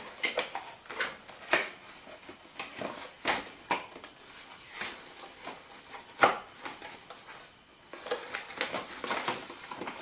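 A cardboard toy box being opened and handled: irregular clicks, scrapes and crinkles of cardboard and plastic packaging, with one louder click about six seconds in.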